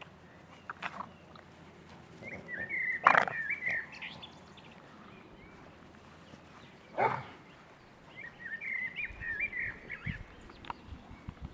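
Six-week-old Boston terrier puppies whimpering in two bouts of short, wavering high-pitched whines, with a couple of sharp knocks in between.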